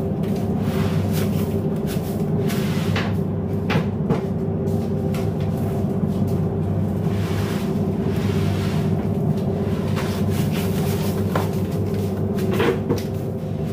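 Crushed ice tipped from plastic baskets onto fish in a boat's fish hold, several short noisy pours, over the steady drone of the boat's engine.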